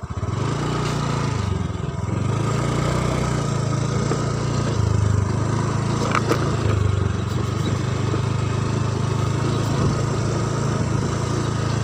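Small motorcycle engine running while riding, its low hum rising and falling in pitch with the throttle.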